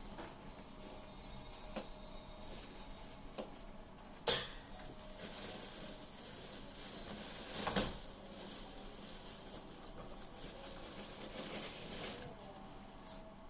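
Australian Shepherd puppies moving about and playing with toys on a hard floor: light patter and small knocks, with two louder brief noises about four and eight seconds in.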